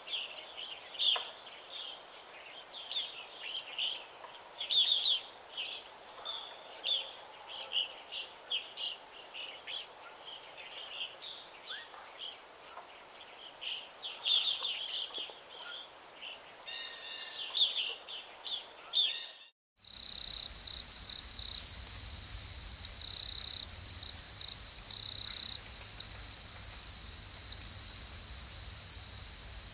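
Wild nature ambience: many short, high bird chirps and calls, cut off abruptly about two-thirds of the way in. A steady, high-pitched insect drone then takes over, with a low rumble underneath.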